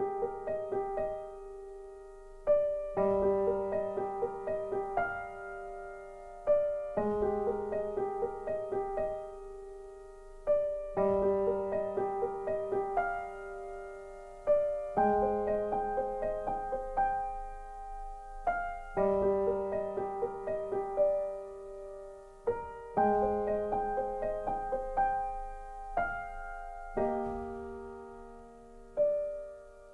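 Slow, gentle solo piano music: soft phrases of sustained notes, each struck and left to ring and fade before the next phrase begins every few seconds.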